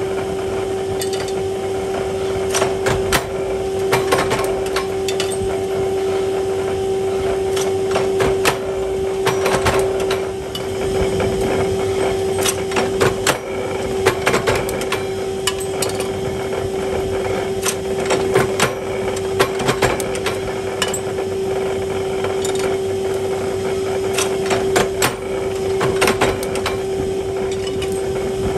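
Mechanical forging press hot-heading carriage bolts: a steady motor hum with irregular metallic clanks every second or two as the die strikes the red-hot bar ends.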